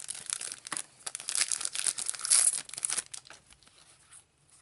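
Trading-card booster-pack wrappers being torn open and crinkled: a dense crackling that is loudest about two seconds in and dies away after about three seconds, leaving a few soft ticks.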